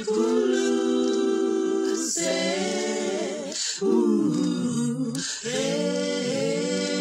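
Four-part a cappella harmony, one voice multitracked: sung and hummed parts holding steady chords that change every second or two, with brief breaks between phrases.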